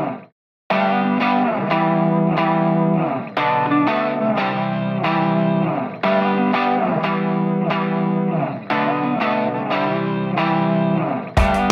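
Background music: plucked guitar with effects. It cuts out for a moment just after the start, and a fuller, louder section with a beat comes in near the end.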